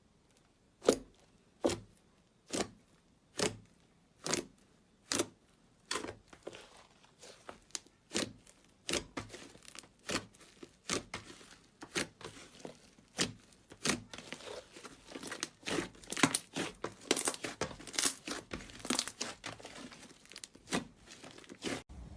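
Slime being squeezed and pressed by hand. It gives sharp popping clicks about once a second at first, then quicker, denser crackling in the second half.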